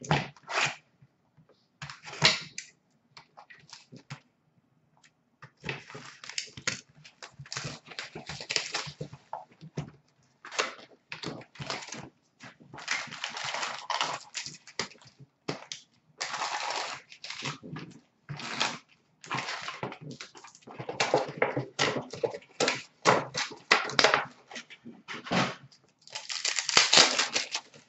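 Hockey card pack wrappers crinkling and tearing open, with cards being slid and shuffled by hand, in irregular rustling bursts and clicks.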